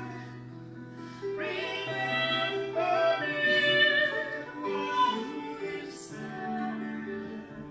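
Singing voices with a harp accompanying them in a slow ballad. The singing swells about a second in and eases off again near the end.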